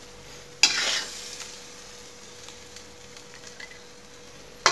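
Metal spatula scraping across a wok as stir-fried shrimp is scooped out onto a plate. There is a loud scrape about half a second in and another at the very end, with a faint steady hiss from the hot wok between.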